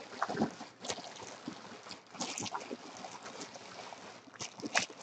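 Clear plastic shrink-wrap crinkling and rustling in irregular bursts as it is pulled off an aluminium briefcase. Two sharper, louder crackles come a little over four seconds in.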